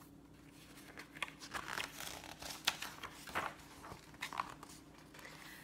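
Paper pages of a picture book being handled and turned: a run of irregular rustles and soft clicks, strongest between about one and four and a half seconds in.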